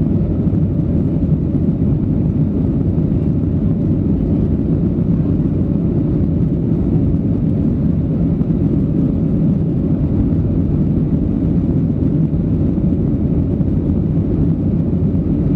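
Steady low rumble inside the cabin of a Boeing 737-800 climbing after takeoff, from its two CFM56-7B27 turbofan engines at climb power.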